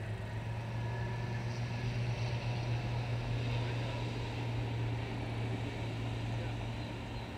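A distant engine's steady low drone, growing a little louder midway and easing off near the end.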